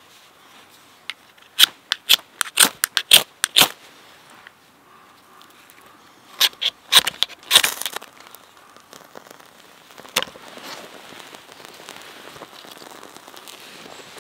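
A knife scraped hard down a ferrocerium rod in two quick runs of sharp rasping strokes, showering sparks onto a pile of fine wood shavings, which catch alight. A faint soft hiss follows.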